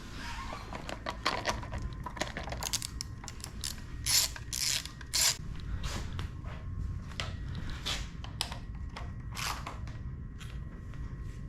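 Irregular metallic and plastic clicks and clatter from hand tools and parts being worked while a motorcycle's headlight assembly is refitted.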